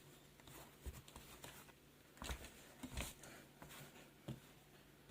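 Faint, scattered small clicks and taps, about half a dozen, from a tablet's small internal speaker and its plastic housing being handled and lifted out.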